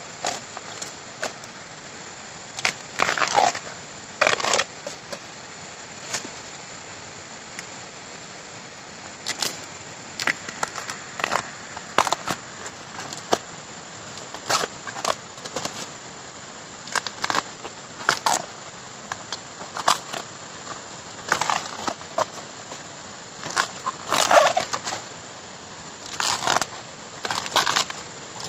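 Tough outer sheaths being torn off a freshly cut bamboo shoot by hand: a long series of short, irregular crackling rips, some coming in quick clusters.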